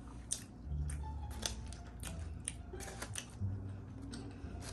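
Aluminium foil crackling and food being handled as a hand digs into a foil-wrapped seafood boil: a scatter of short, sharp crinkles and clicks at irregular intervals.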